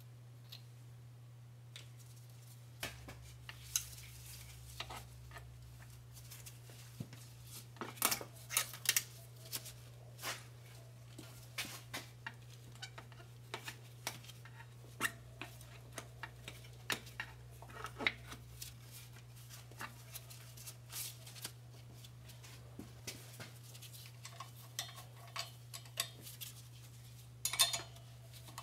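Hand tools clicking and clinking against metal in irregular runs, with a few quick clusters of clicks, as the front drive shaft bolts on a 2016 Chevy Suburban are worked loose.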